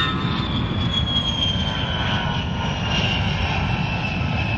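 Fighter jet engines: a steady roar with a high whine that slowly falls in pitch.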